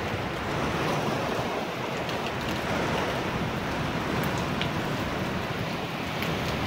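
Heavy downpour with strong wind: a steady, dense hiss of pouring rain and rushing wind, with a few faint drop ticks.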